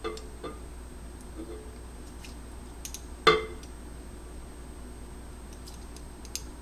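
A glass vanilla bottle handled and its cap worked, giving a couple of light clicks at the start and one sharper knock with a short ring about three seconds in, over a faint low hum.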